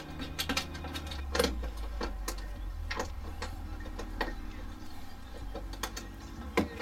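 Hands working at a car's B-pillar plastic trim panel and floor brace bar, making scattered clicks and light knocks, several times over.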